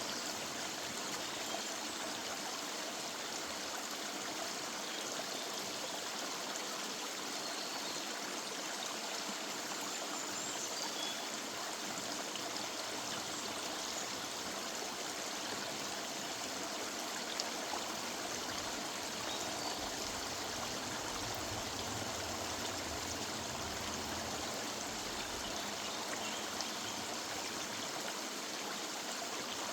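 River water running steadily, a constant even rush of flowing water.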